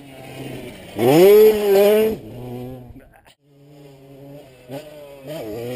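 Two-stroke single-cylinder engine of a Kawasaki KX 125 motocross bike. It revs up sharply about a second in and holds high for about a second, then drops back and fades. It then runs lower and steadier, picking up again near the end.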